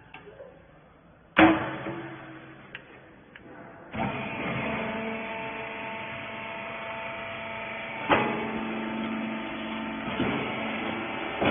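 A loud metallic bang, then about two and a half seconds later a rag baler's motor starts and runs with a steady hum. Two more clanks come from the machine while it runs, about halfway through and near the end.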